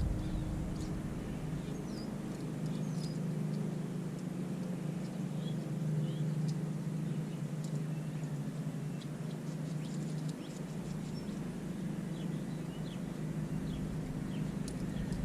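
Scattered short, high bird chirps over a steady low hum.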